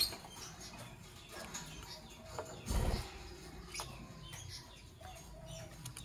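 Lovebirds chirping in short, scattered calls, with one low thump about three seconds in.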